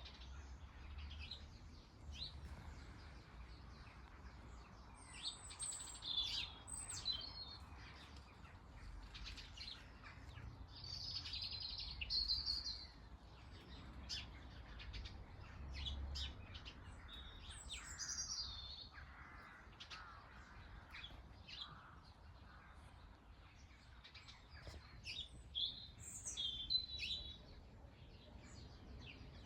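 Small garden birds chirping and calling on and off, in short high notes scattered throughout, over a faint low rumble.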